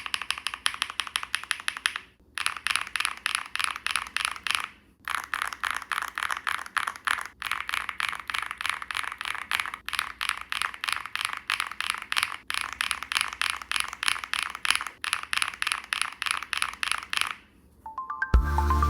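Fast typing on a Wobkey Crush80 mechanical keyboard with HMX linear switches, FR4 plate and full foam: a rapid clatter of keystrokes, broken by short pauses every two to three seconds as the set of switches changes, running from deeper thocky to higher clacky sounding switches. Music comes in near the end.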